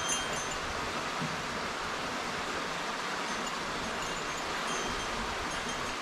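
Small stream flowing steadily over a shallow riffle under a bridge, a constant rush of water. Brief faint high ringing tones come just at the start and again about four seconds in.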